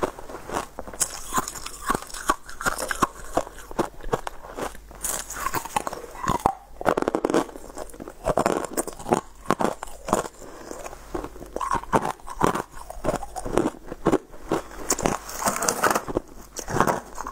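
Close-miked chewing and crunching of frozen purple ice, with dense runs of sharp cracks as the pieces are bitten and ground between the teeth.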